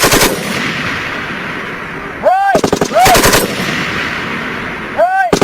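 M240B 7.62 mm belt-fed machine gun firing short bursts of a handful of rounds, one at the start and another about three seconds later, each followed by a long echo across the range.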